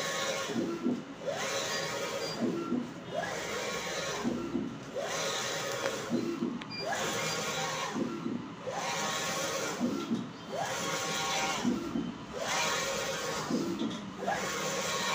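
Wide-format inkjet banner printer printing: the print-head carriage shuttles across the banner, one pass about every two seconds. Each pass starts with a rising motor whine, over a steady mechanical hum.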